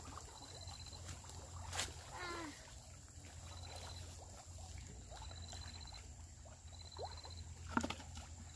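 Quiet pondside ambience: short, high-pitched insect trills repeating every second or so over a low steady hum, with a few light knocks and a brief wavering call about two seconds in.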